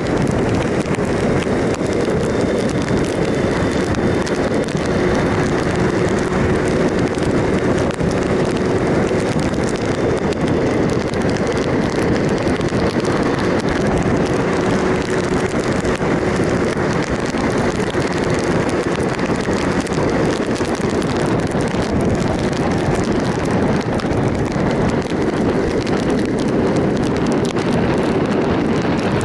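Steady rush of wind over the microphone of a moving motorcycle, with the 2007 Triumph Sprint ST 1050's three-cylinder engine running at an even pitch underneath.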